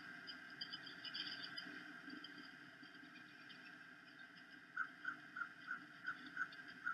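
Faint bird calls: a few high chirps at first, then from about two-thirds of the way in a run of about seven short repeated notes, roughly three a second, over a steady background hiss.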